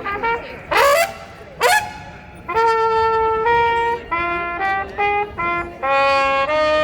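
A brass instrument, most like a trumpet, playing: two quick upward rips, then a phrase of held notes that step up and down in pitch.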